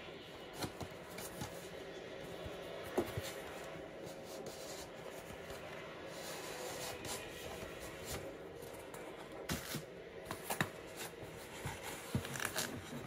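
Soft rustling and handling of a cardboard model box and its plastic wrapping, with scattered light taps and clicks that grow more frequent in the last few seconds.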